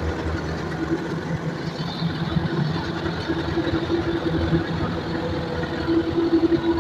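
Rice combine harvester running steadily, its engine and machinery giving a constant hum and rumble.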